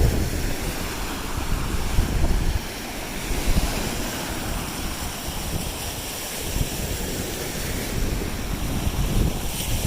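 Waves washing onto a Lake Erie beach, a steady wash of surf, with wind rumbling on the microphone.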